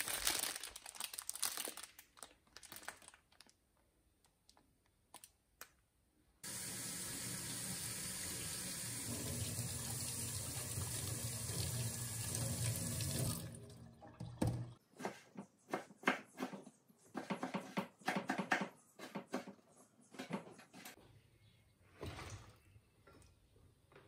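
A few knocks and clatters, then a kitchen tap running steadily for about seven seconds before it shuts off. After that comes a knife slicing tomatoes on a wooden cutting board, in a run of evenly spaced cuts.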